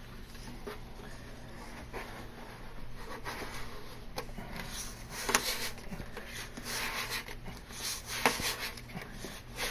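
Peel-and-stick edge banding strip pulled firmly across an edge, a repeated rubbing scrape that takes the curl out of the banding. Two sharp clicks stand out, about five and eight seconds in.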